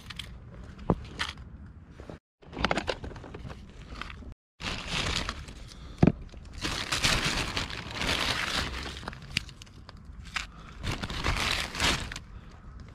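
Plastic bag crinkling and rustling in irregular bursts as it is opened and handled, with a few sharp clicks.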